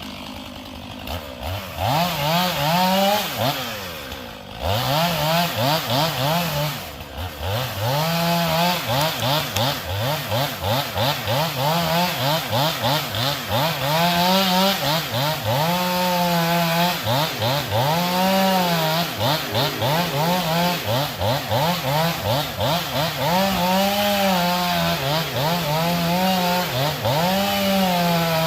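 Two-stroke chainsaw cutting into a tree, the engine revving up and dropping back again and again as the throttle is worked. It runs quieter for the first second or two, then comes up to full cutting revs.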